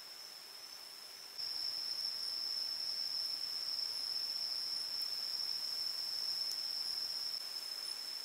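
Steady high-pitched insect trill, unbroken. It gets louder about a second and a half in and drops back a little near the end.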